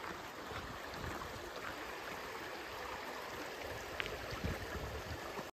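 A forest river flowing over stones, a steady rush of running water.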